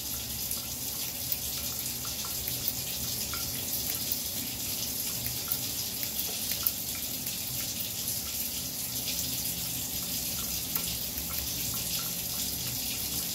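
Steady rush of running water from a bathroom tap, with faint scissor snips through hair now and then.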